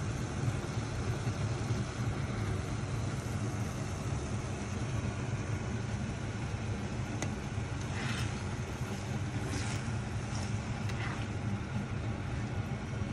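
Egg and eggplant frying in a pan, sizzling steadily over a low hum, with a few faint spatula scrapes in the second half.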